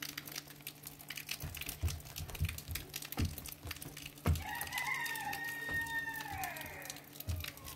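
A rooster crowing once: one long call about three seconds long, starting about halfway in and falling in pitch at its end. A few soft low thumps come before it.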